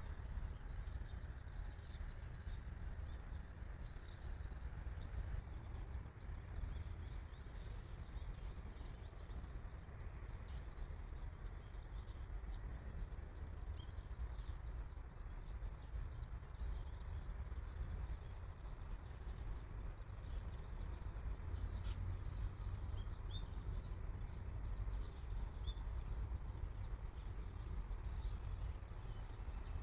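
Outdoor ambience: a steady low rumble with faint, rapid high-pitched chirping that starts about five seconds in.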